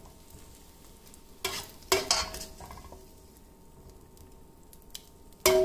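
Metal ladle knocking and scraping in a wok while scooping out scrambled egg, over a faint sizzle of oil. Two knocks come about one and a half to two seconds in, and a louder knock with a short ringing tone near the end.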